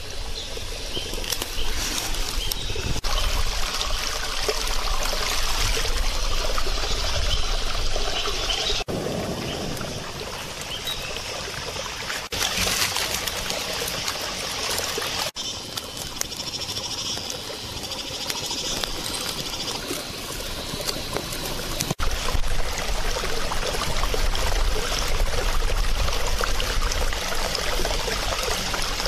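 Mountain spring water trickling and running over rocks, a steady splashing that changes abruptly several times.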